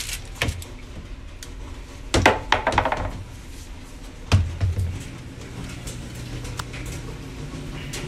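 A series of knocks and thumps in a small room: a quick cluster about two seconds in and a heavier thump past four seconds, followed by a steady low hum.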